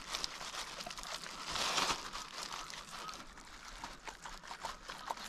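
Thin plastic bag crinkling and rustling in irregular little crackles as hands knead marinade into a whole raw chicken inside it, a little louder around the second second.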